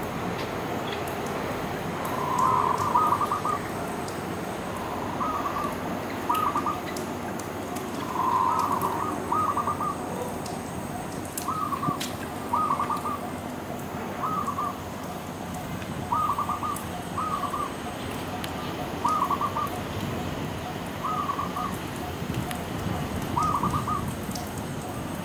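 A dove calling over and over, in short phrases of two to four quick cooing notes repeated every second or two, over a steady background hiss.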